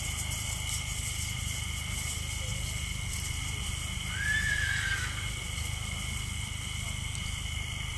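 A horse whinnying once, about four seconds in: a single high call lasting about a second that rises and then falls away.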